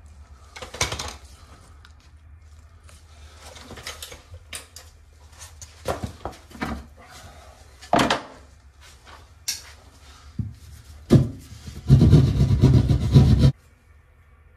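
Scattered knocks and thuds of drywall being broken open at the bottom of a wall, ending in a loud, dense rush of noise about a second and a half long near the end.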